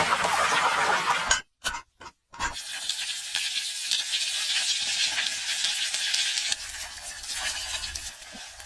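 Food frying in hot oil, a steady sizzle, cut off briefly by a moment of silence about a second and a half in before the sizzling resumes.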